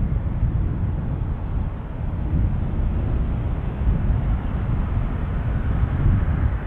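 Jet airliner engines rumbling steadily, the sound heavy in the low end and thinning out in the highs.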